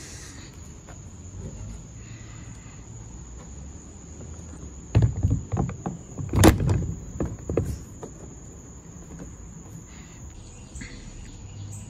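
Hobie kick-up fin Mirage drive being fitted into the kayak's drive well: a few seconds of plastic-and-metal clunks and clicks starting about five seconds in, with one sharp knock standing out. A steady high insect trill runs underneath.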